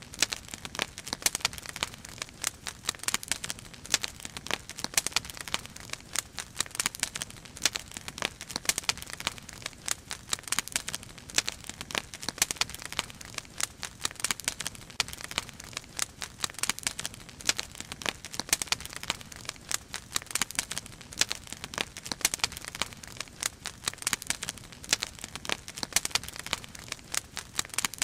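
Firewood burning in a dragon-shaped fire basket, crackling with many irregular sharp pops over a soft hiss.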